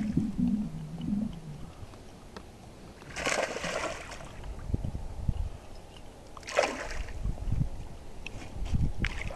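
A hooked bass splashing at the surface as it is reeled in toward the boat: one splash about three seconds in and a shorter one a few seconds later.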